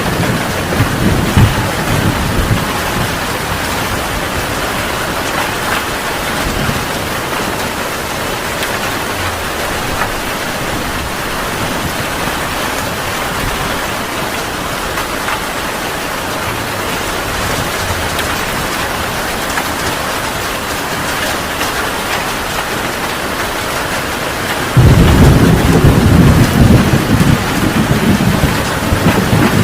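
Heavy rain falling steadily, with thunder rumbling away in the first couple of seconds. Near the end a loud peal of thunder breaks in suddenly and keeps rumbling.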